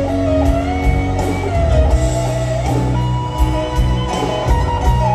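Live rock band with a lead electric guitar playing long held notes that slide from one pitch to the next, over bass and drums.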